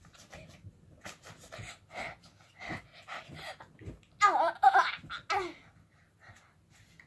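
A boy's short mouth and breathing noises into a cloth held to his mouth, then loud laughter in three bursts about four seconds in.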